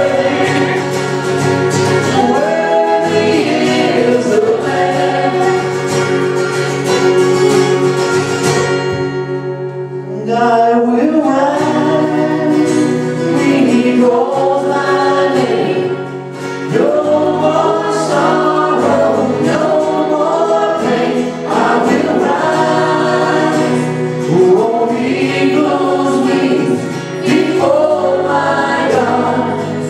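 Live worship song from a small church band: several voices singing together over acoustic and electric guitars. The music thins to one held chord about a third of the way in, then picks up again.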